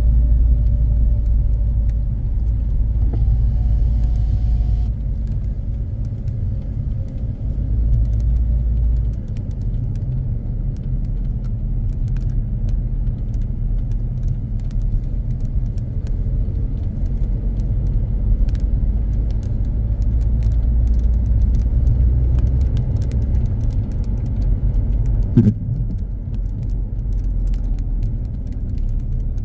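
A car being driven, heard from inside the cabin: a steady low rumble of engine and road noise. A single short knock comes about 25 seconds in.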